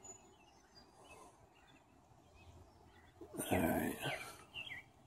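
Faint outdoor background with a few small bird chirps, and a brief louder rush of noise about three and a half seconds in.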